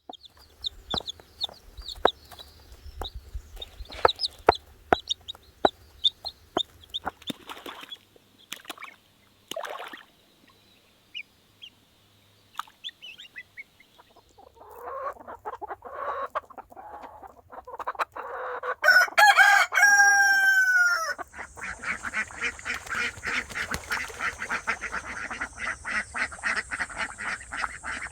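Chickens clucking amid scattered sharp taps, with a rooster crowing once about 19 seconds in, followed by a dense stretch of rapid clucking and calling.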